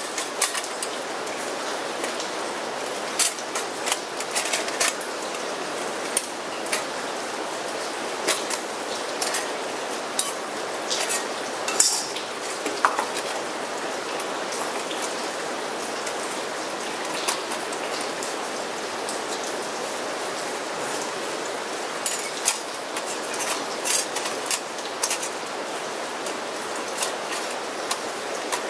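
Thin metal panels of a OneTigris Rocuboid folding stove clicking and clinking as they are slotted together, opened out and folded flat. The clicks come at irregular moments over a steady hiss of rain.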